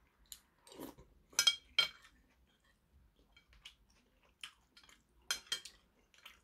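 Metal spoon clinking and scraping against a porcelain soup bowl: scattered sharp clinks, the loudest in quick pairs about a second and a half in and again about five and a half seconds in.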